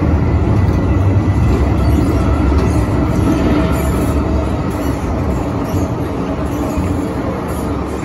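Inside an MTR M-Train electric multiple unit under way: a steady low rumble of wheels on rail and running gear, easing slightly quieter near the end.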